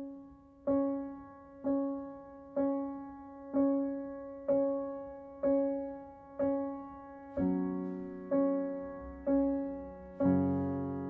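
Slow piano music: a single note repeated about once a second, each one dying away, with lower notes joining in from about seven seconds in.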